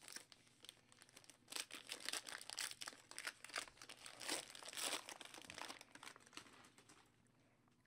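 Crinkling and rustling of a baseball card pack's wrapper as it is torn open and the cards are pulled out. It comes in a dense run of crackles through the middle and thins out near the end.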